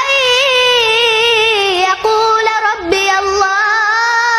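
A young girl reciting the Quran in the melodic tajweed style, holding long, high notes that waver and bend. She takes short breaths about two and three seconds in.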